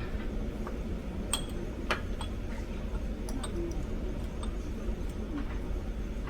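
Scattered light clicks and clinks, about a dozen at uneven intervals, over a steady low rumble.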